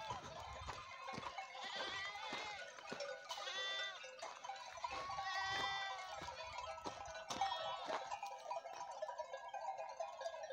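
A flock of sheep and lambs bleating, several calls overlapping, the loudest about three and a half seconds in and again five to six seconds in.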